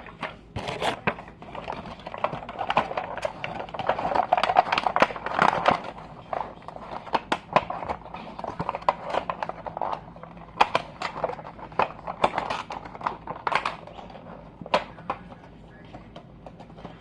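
Toys and plastic packaging being handled: irregular clicks and taps, with a burst of crinkling rustle a couple of seconds in.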